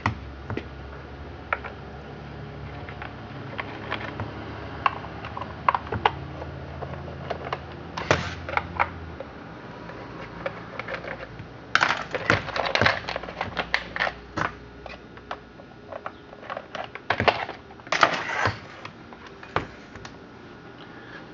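Scattered clicks, knocks and plastic rattles as the top cover of a Husqvarna 51 chainsaw is unfastened and lifted off, with busier bursts of handling about a third of the way in, past halfway and near the end.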